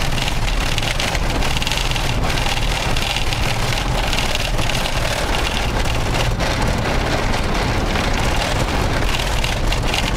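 Toyota Land Cruiser driven over a corrugated dirt track, heard from inside the cab: a loud, steady rattling and shaking of the body and dash over a constant low rumble of tyres and engine. The truck shakes on the corrugations even with the tyres let down to 15 PSI.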